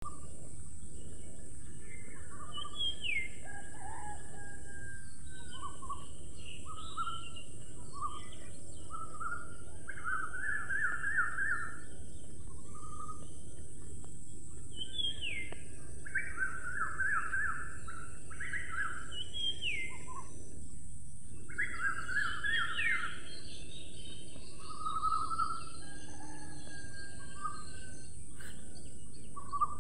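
Birdsong ambience: several birds call over and over, with short buzzy trills and quick downward-sliding notes, over a steady high-pitched hiss.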